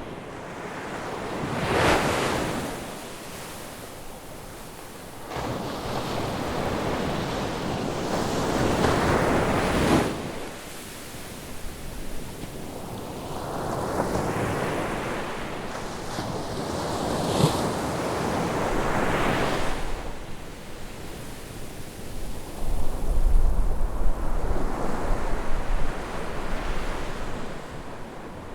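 Ocean waves breaking and washing on a beach, surging in swells every few seconds. Wind rumbles on the microphone near the end.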